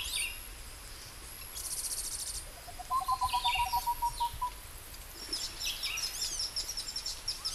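Wild birds singing: scattered high chirps and a short fast trill, then one bird repeating a quick run of lower, even notes about seven times a second, then a busy chatter of high chirps, over a faint low rumble of outdoor noise.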